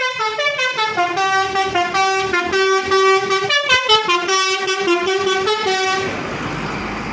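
A tour bus's Basuri telolet multi-tone horn playing a melody of short stepped notes with a longer held note in the middle, stopping about six seconds in. A steady rush of noise follows.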